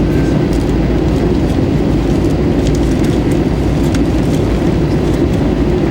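Steady cabin noise inside an Airbus A320-214: the drone of its CFM56-5B engines and rushing airflow, heard from a window seat, with faint scattered light rattles.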